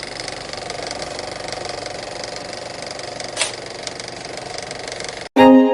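A steady, fast mechanical buzzing rattle with one sharp click about three and a half seconds in; it cuts off suddenly near the end and violin music starts.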